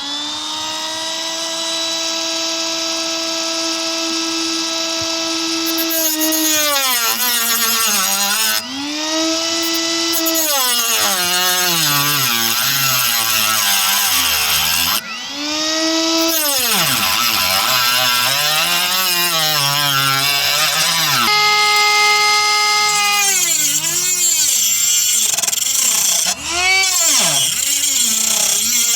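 Small handheld rotary tool with a cutting disc, running at a steady high whine, then cutting aluminum sheet, its pitch sagging and recovering again and again as the disc bites into the metal. It eases off the cut briefly a few times.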